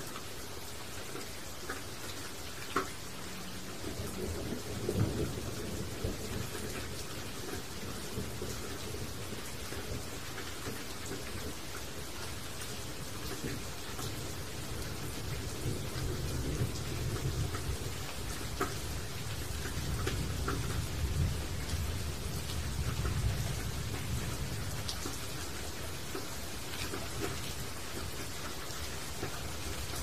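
Steady rain pattering on broad leaves, with sharp ticks of single drops now and then. A low rumble swells a few seconds in, then again for longer through the middle.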